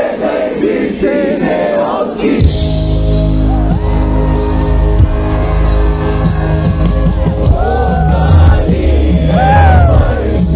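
Live band music through a large outdoor PA, with singing. For the first couple of seconds the singing carries with little accompaniment, then about two and a half seconds in the full band comes in with heavy bass.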